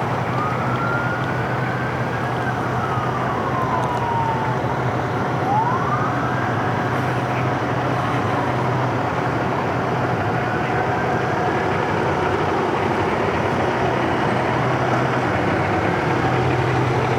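An emergency vehicle siren wailing, its pitch slowly rising and falling several times, over steady street traffic and a low engine rumble.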